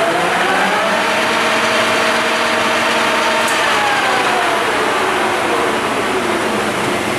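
Cincinnati Hydrashift engine lathe's spindle drive running in reverse: a geared whine that climbs in pitch over the first second, holds steady, then falls away as the spindle coasts down.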